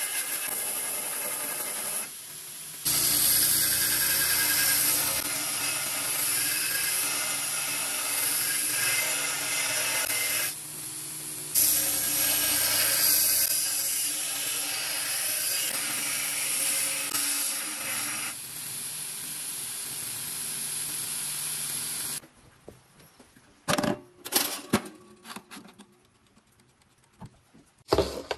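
Belt grinder grinding the edge bevels of a 5160 spring-steel card blank, a steady grinding hiss with two short breaks. About three-quarters of the way through the grinding stops, and a few sharp clicks and taps follow as the steel card and a marker are handled on a wooden bench.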